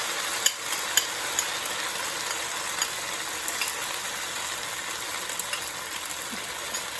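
Chicken, onion and bell pepper stir fry sizzling steadily in a hot pan with its sauce just poured over, with scattered clicks of a utensil stirring, most of them in the first few seconds.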